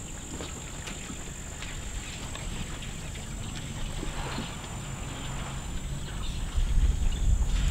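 Outdoor ambience at a waterhole: a low rumble of wind on the microphone that swells loud near the end, with a steady high whine and faint scattered clicks.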